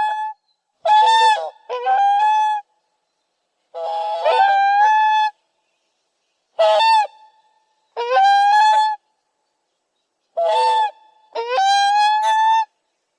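Swan honking: loud, nasal, trumpet-like calls, mostly in pairs of a short honk followed by a longer one, with pauses of a second or more between the pairs.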